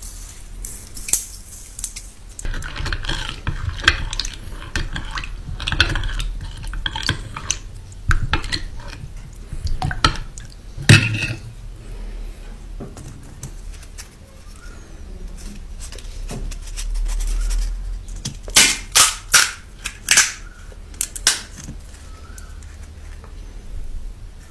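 Close-miked eating-prep sounds: a metal spoon clinking and scraping in a glass bowl of chutney, with crisp puri shells being handled. Later comes a quick run of about five sharp cracks as the fried puri shells are broken open with the fingers.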